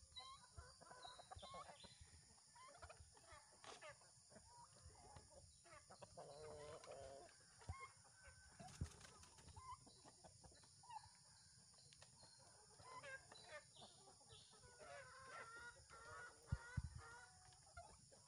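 Faint clucking from a flock of Rhode Island Red and black Australorp hens crowding to be hand-fed, with short, irregular calls throughout. A couple of sharp knocks stand out, the loudest one near the end.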